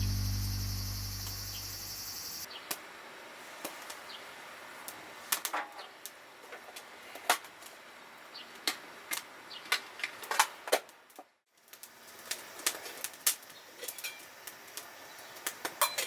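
Wood fire crackling, with irregular sharp pops over a quiet steady background, after background music fades out in the first couple of seconds. A brief moment of silence about two-thirds through.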